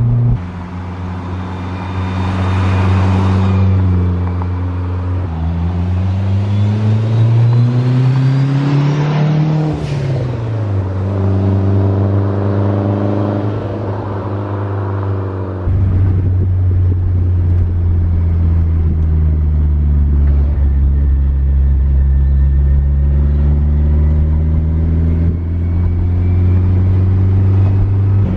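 Turbocharged 500 hp 4G63 four-cylinder in a first-generation Eagle Talon accelerating under load: the engine note climbs in pitch, drops at a gear change, and climbs again. About halfway through it settles into a steady low drone at cruise.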